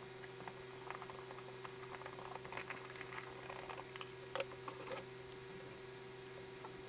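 Kinetic sand being scratched and scraped with a tool, a quick irregular run of small scratchy clicks, sped up, over a steady electrical hum.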